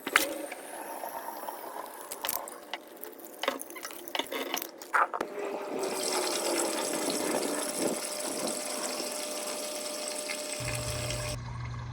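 Running water, with scattered sharp knocks and clicks in the first half, then a steady rush of water that stops suddenly near the end.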